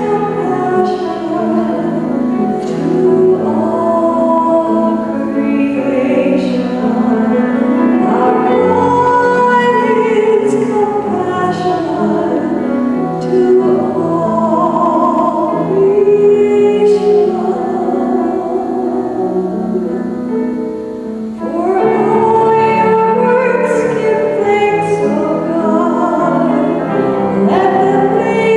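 Sung responsorial psalm: a singer performing a slow, classical-style melody over instrumental accompaniment.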